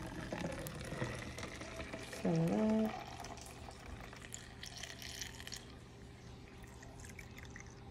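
Lemonade being poured from a spouted measuring cup through a funnel into plastic bottles: a steady stream of liquid filling. About two seconds in there is a brief, louder voice-like sound.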